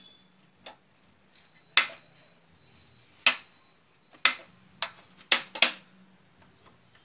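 Relays inside an automatic voltage stabilizer clicking about six times at uneven intervals, the last two close together, as they switch transformer taps while the input voltage is changed, over a faint low hum. The switching steps the output the wrong way, which the repairer puts down to the swapped red and black tap connections.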